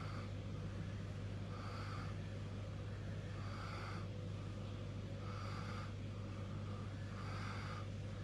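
A steady low hum, with a soft breathy swish repeating about every two seconds.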